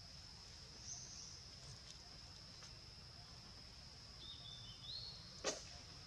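Faint steady high-pitched insect drone, with a few short high chirps about a second in and again near the end, and one sharp click shortly before the end.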